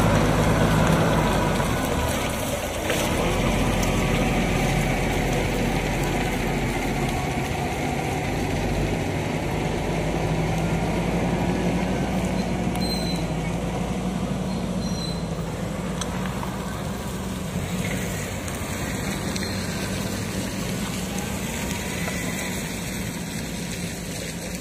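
Heavy diesel engines running steadily, from a loaded Hino dump truck and the excavator working over it. The level eases off slightly toward the end.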